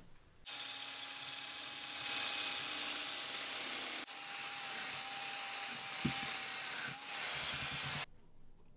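Electric power tool running steadily with a constant whine, in several short segments joined by abrupt cuts, with a brief knock about six seconds in.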